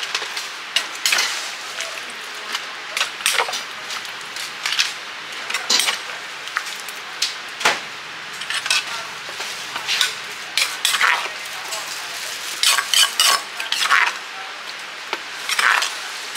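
Irregular clinks and clatter of utensils against dishes over a steady hiss.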